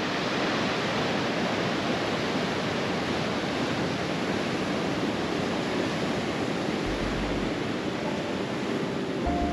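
Ocean surf breaking and washing over rocks, a steady rush of water. Soft music notes come in near the end.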